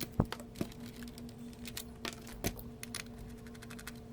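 Scattered light clicks and a few knocks from a PS4 console and its cable being handled, over a steady low hum.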